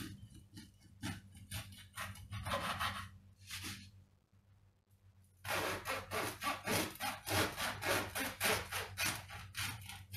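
Knife sawing back and forth through a freshly baked loaf of bread with a crisp crust, in rasping strokes of about four a second. The strokes stop for about a second and a half in the middle as the first slice comes off, then start again faster on the next slice.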